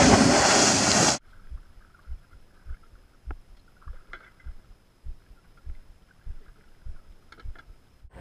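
About a second of loud wind noise on the microphone, which cuts off abruptly. Then faint, muffled low knocks come roughly every half second: water slapping the drums of a homemade pontoon boat moving on a river. A faint high steady tone runs under them.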